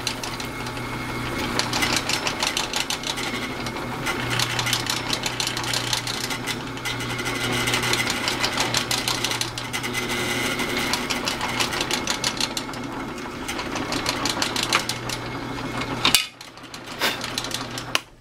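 Drill press running, its bit boring into a plastic block, with a steady motor hum under a dense, rapid chatter of the cut. The sound cuts off suddenly about sixteen seconds in, followed by a couple of light knocks.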